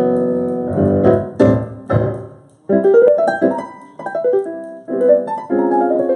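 Stage keyboard with a piano sound played hard: struck chords, a brief break, then a quick flurry of many notes.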